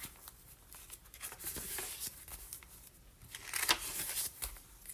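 Paper pages of a handmade junk journal being turned and handled: light rustling and crinkling, with a louder rustle about three and a half seconds in.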